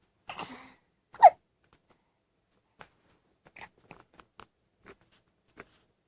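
A single loud, sharp hiccup about a second in, with a brief squeak to it, just after a short breath. Faint scattered clicks follow.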